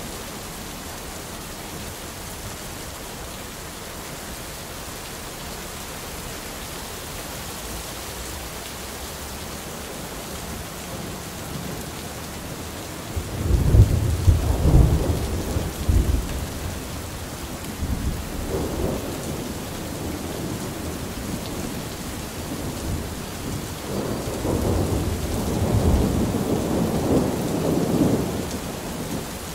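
Thunderstorm: steady rain falling throughout, with thunder rolling in about halfway through, loudest at first, then a shorter rumble and a longer one near the end.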